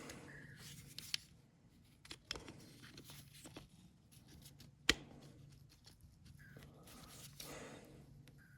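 Small metal and plastic carburettor parts being handled and fitted together by hand: faint clicks and light scraping, with one sharp click about five seconds in.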